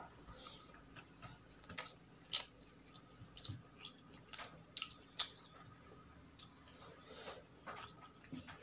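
Close-miked eating: irregular wet clicks and crunches of a mouth chewing food, several a second at uneven intervals.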